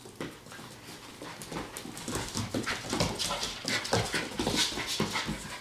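Eight-week-old Standard Poodle puppies playing tug with a plush toy: puppy panting and small play noises, with quick irregular clicks and scrabbling of claws on the wooden floor. It grows busier and louder about two seconds in.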